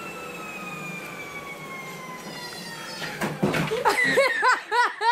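Treadmill motor whining and slowly dropping in pitch as the belt slows, then a crash about three seconds in as a person falls off the treadmill into the curtains, followed by rapid bursts of laughter.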